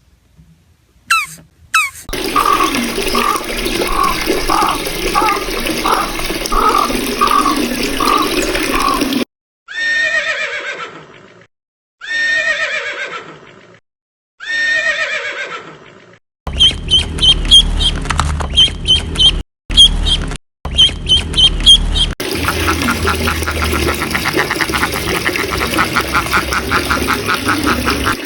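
A run of animal calls in separate clips with abrupt cuts between them. First comes a call repeated about twice a second for several seconds. Then three separate falling cries of about two seconds each, and finally fast clicking, croaking pulses.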